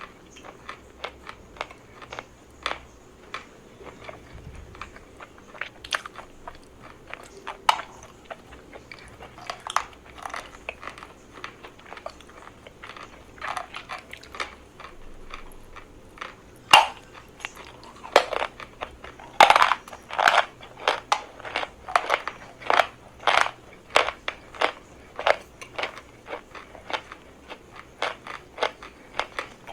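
A person biting and chewing chalk, with crisp crunches between quieter chewing. The crunches come sparsely at first, then a run of loud, close-together ones a little past halfway.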